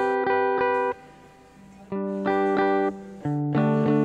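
Instrumental background music: short phrases of repeated chords, with a pause of about a second near the start and a brief break near the end.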